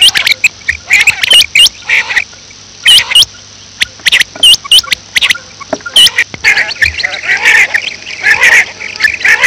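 Quail calling rapidly: sharp, clipped 'kirk' notes of the female quail, many overlapping and repeating several times a second. From about two-thirds of the way through they turn into denser, harsher calls.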